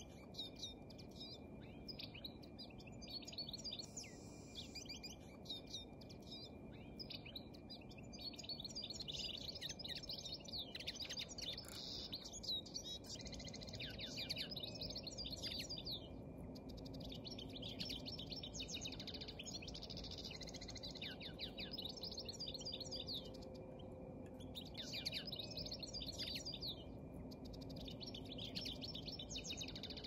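Several small songbirds twittering and chirping continuously, with many quick calls overlapping. The calls are denser from about ten seconds in.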